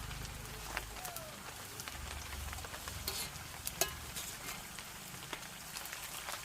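Food sizzling in a pot over a wood fire, with scattered sharp crackles and pops.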